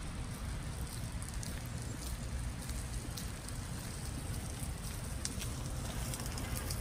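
Wind rumbling on a phone's microphone, with a light crackling rustle and a few faint clicks.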